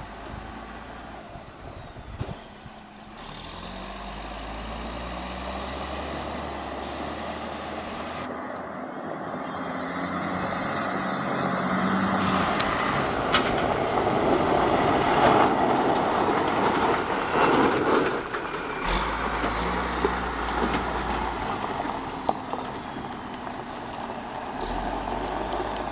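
M932A2 6x6 military tractor truck's Cummins 6CTA8.3 turbodiesel running as the truck drives over gravel, with tyre noise on the gravel. It grows louder as the truck approaches and passes, loudest a little past halfway, then drops off.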